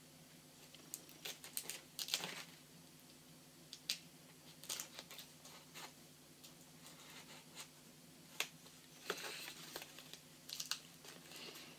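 Packaging crinkling and rustling as it is handled, in short irregular spells with a few light clicks and taps.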